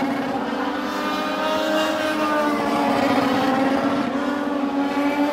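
Legends race cars' Yamaha four-cylinder motorcycle engines running at speed around an oval track, several engine notes rising and falling together as the cars circle.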